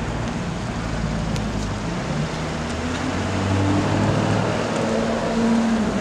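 Lamborghini Urus twin-turbo V8 pulling away at low speed, its note rising about two seconds in and getting louder through the second half, over street traffic noise.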